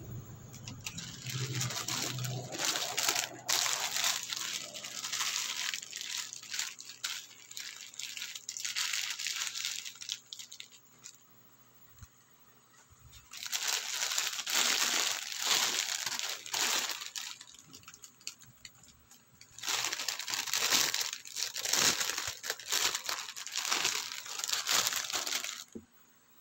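Thin plastic packaging crinkling as it is handled and unwrapped, in three spells with short quiet pauses between.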